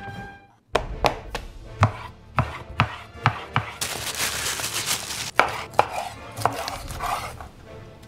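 Sharp knocks on a bamboo cutting board, about one every half second, then a clear plastic bag crinkling as raw shrimp are handled in it for about a second and a half, followed by a few more knocks on the board.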